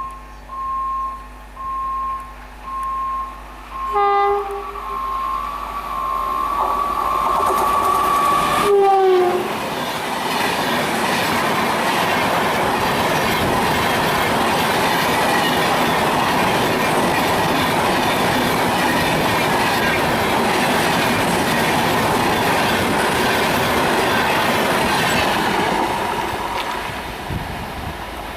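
WAP-5 electric locomotive of a superfast express sounding a long horn blast from about four seconds in. The horn drops in pitch as the locomotive passes, and then the train rushes past at high speed, the noise fading near the end. Before the horn, a repeated short high beeping.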